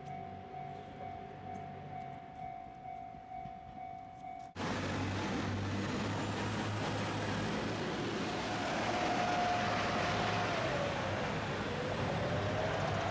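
Level crossing warning bell ringing, a repeating electronic tone. About four and a half seconds in, it gives way abruptly to a train's loud running noise as it passes close by.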